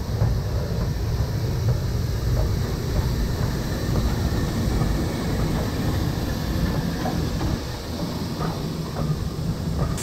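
BR Standard Class 4MT 4-6-0 steam locomotive 75069 and its coaches rolling past close by, a steady low rumble with scattered clicks of the wheels over the rail joints.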